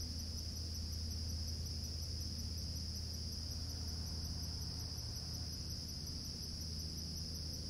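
Steady, high-pitched chorus of insects trilling without a break, with a low steady hum underneath.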